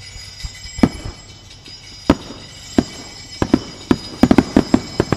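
Aerial firework shells bursting: about a dozen sharp bangs, spaced a second or so apart at first, then coming in quick succession near the end. A steady, held musical tone runs underneath.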